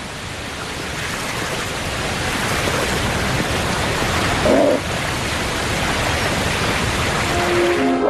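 Rushing whitewater at a river falls: a steady, dense rush of water that grows slightly louder, with a brief lower-pitched sound about halfway through.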